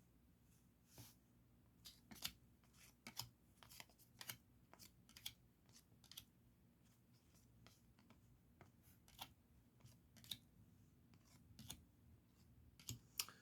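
Trading cards being flipped one at a time through a stack: faint, short, sharp card flicks about once a second, some in quick pairs.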